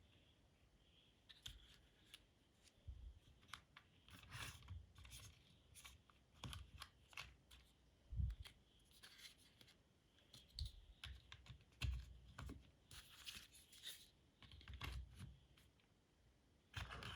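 Plastic LEGO bricks handled and pressed together: faint, irregular clicks and light scraping, with some rustling of loose pieces.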